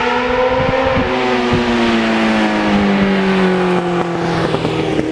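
Sport motorcycle engine running at high revs as the bike rides by, its note drifting slowly down in pitch, with a few faint clicks.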